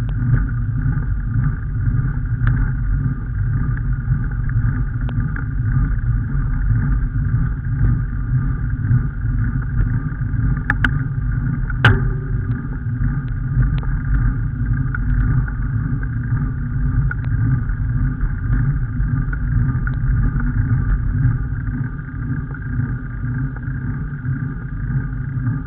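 Steady low rumble of a vehicle driving along a road, heard from on board, with two short knocks about eleven and twelve seconds in.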